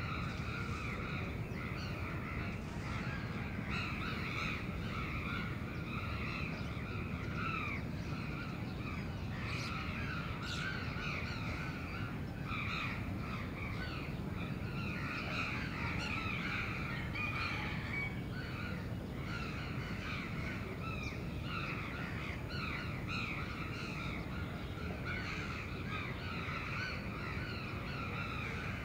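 Many crows cawing, their calls overlapping with hardly a break, over a steady low city hum.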